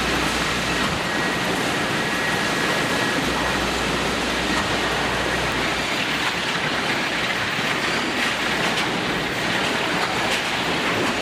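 Sawmill machinery running: a steady mechanical rumble and clatter, with a few sharp knocks in the second half.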